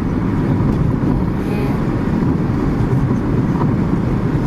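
Road and wind noise inside a car cabin at highway speed: a steady low rumble.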